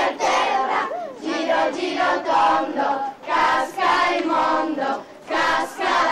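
A group of children singing together in short phrases while dancing a ring game.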